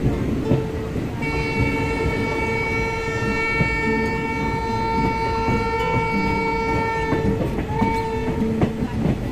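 Train horn sounding one long, steady blast of about six seconds, then a short blast, over the steady rumble and clatter of the coach's wheels on the rails.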